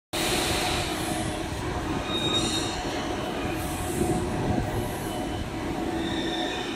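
A bank of drywall screw thread rolling machines running together: a dense, steady mechanical clatter with brief high-pitched squeals now and then.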